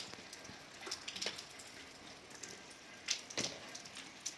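Scattered light clicks and knocks, a few close together about a second in and a louder pair a little past three seconds in, over a faint steady background.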